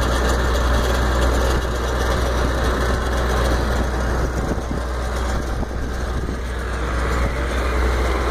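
Engine of a water pump running steadily at constant speed, a low even drone, as it pumps water into a tanker truck.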